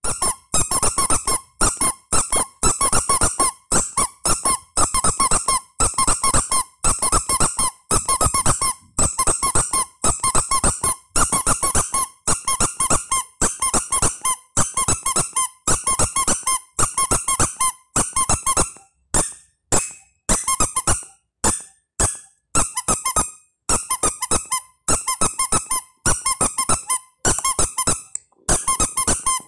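Squeaky rubber duck toy squeezed over and over, in bursts of quick squeaks about once a second. The squeaks turn shorter and sparser for a few seconds past the middle.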